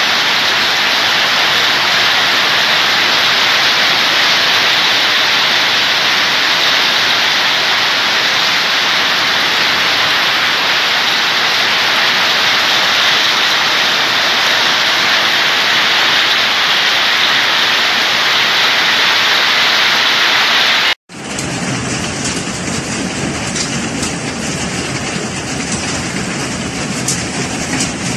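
Heavy hailstorm: a dense, steady roar of hail and rain pelting down. About 21 seconds in it breaks off abruptly into another recording of the storm, a rougher rush with sharp hailstone impacts clattering through it.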